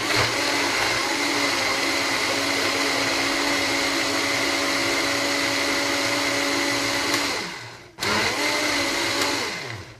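Countertop electric blender puréeing boiled lentils in liquid: the motor runs steadily for about seven seconds, winds down with a falling pitch, then starts again for a shorter burst of about a second and a half and winds down.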